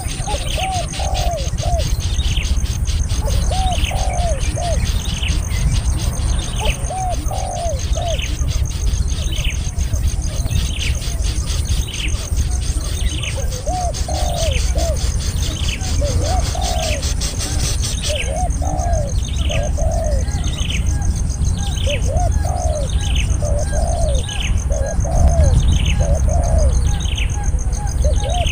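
Bird calls repeated over and over: a short falling chirp about once a second, with short runs of lower, looping notes in between, over a steady low rumble.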